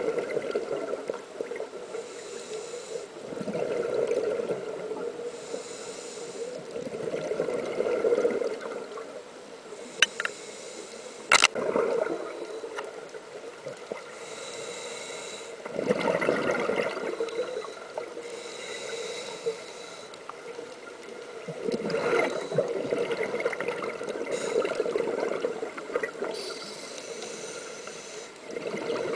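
Scuba breathing through a regulator heard underwater: each exhalation releases a rush of bubbles, recurring about every three to four seconds, with a quieter hiss in between. Two sharp clicks land about ten and eleven seconds in.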